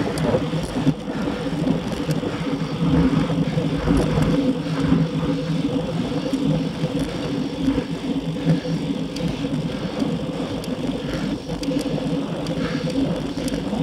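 Road noise from a bicycle moving at speed: a steady hum from the tyres on asphalt, mixed with a constant rushing noise.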